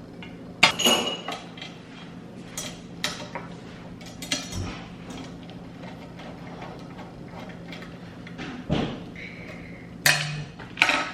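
Metal parts of a laptop stand clinking and knocking as it is handled and put together: a string of sharp clicks and clanks, loudest about half a second in and twice near the end.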